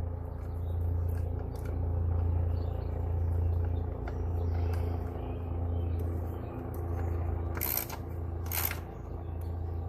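A steady low rumble that swells and fades slowly, with two sharp clicks close together near the end.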